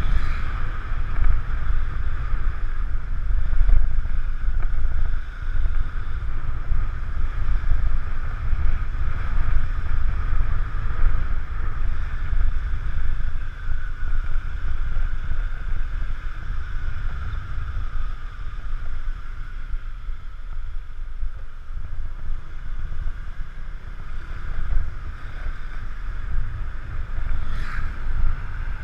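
Wind buffeting the microphone of a camera on a moving motorbike, with the motorbike's engine running steadily underneath. There is a brief sharper sound near the end.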